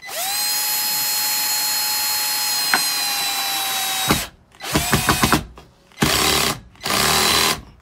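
Cordless drill driving a screw through a metal closet pole socket into wood with no pilot hole. A steady motor whine runs for about four seconds, then a stuttering burst with rapid clicks, then two short bursts as the screw is snugged down.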